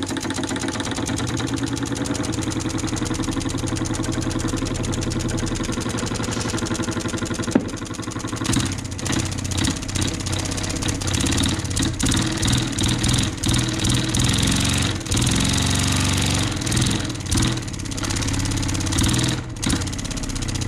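Small home-built wobbler (oscillating-cylinder) engine running on compressed air, a fast, even chuffing with a hiss. About eight seconds in there is a sharp click, and from then on it runs unevenly, its beat speeding and slowing.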